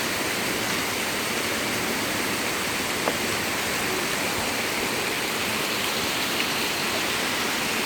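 Heavy wind-driven rain pouring steadily in a storm, a constant hiss of rain and wind, with a faint tap about three seconds in.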